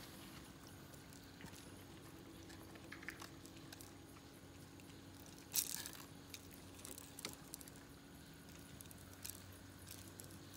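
Faint clicks and small metallic rattles from pliers and a hook being worked at the mouth of a snook on a boat deck, with one brief sharper rattle about five and a half seconds in, over a faint steady hum.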